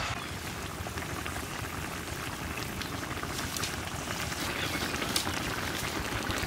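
Silver carp curry gravy simmering in a pot, a steady patter of many small bubbles.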